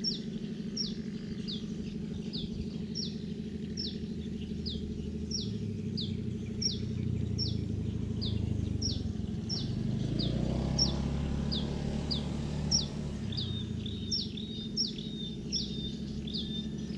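A bird repeating one short, high downslurred chirp at an even pace, about one and a half times a second, over a low motor hum that swells in the middle and fades again.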